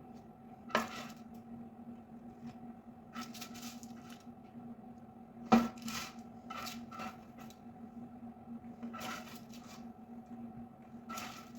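Kitchen items being handled: scattered light clicks and scrapes, with two sharper knocks, one about a second in and a louder one near the middle, over a steady low hum.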